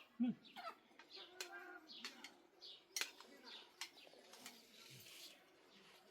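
Birds chirping in short, quick calls, with a few sharp clicks or knocks.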